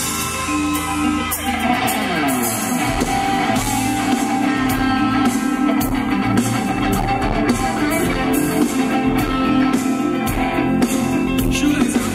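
Live rock band playing without vocals: an electric guitar over drums, with a falling slide in pitch about two seconds in.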